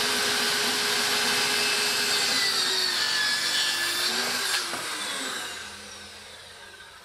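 A handheld power tool working a plywood panel, hooked up to a Festool dust extractor that runs with it. About four and a half seconds in the tool is switched off, and the motors wind down with a falling whine while the sound fades away.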